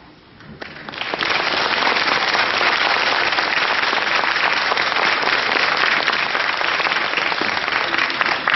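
Audience applauding, swelling in about a second in and then holding steady.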